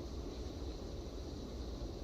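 Steady outdoor background noise: an even low rumble with a faint hiss above it, with no distinct events.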